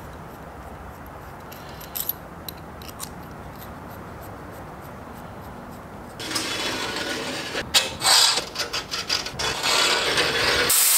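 Steel scribe scratching along a steel rule on sheet steel, a run of sharp scrapes starting about six seconds in, after a quieter stretch with a few light clicks. Near the end a loud steady hiss takes over.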